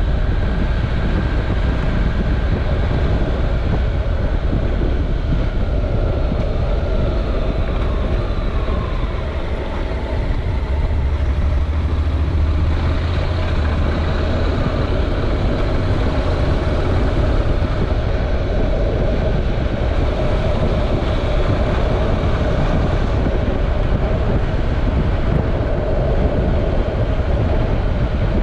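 Honda NC700X's parallel-twin engine running as the motorcycle rides along, with wind noise on the microphone. The sound dips briefly about ten seconds in, then the low engine note swells again.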